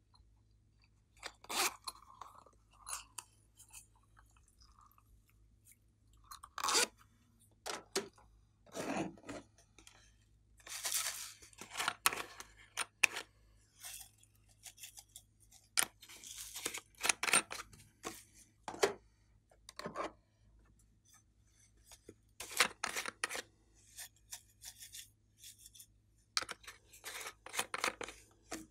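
Scattered clicks, crackles and short rustles from hands opening small plastic slime containers and pouring their contents into a tray of glossy slime, in irregular bursts with quiet gaps between.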